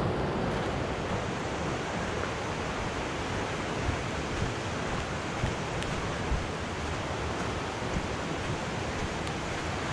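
Steady rush of river rapids running high, Bloede rapid on the Patapsco River at about 1000 cfs, with a few small knocks along the way.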